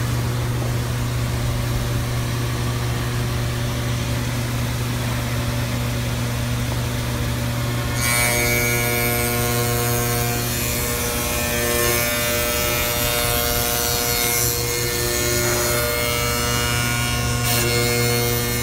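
CNC tenoning machine running with a steady motor hum. About eight seconds in, its spinning cutter starts milling the hardwood block with a hissing, whining cut, working a large tenon in several passes.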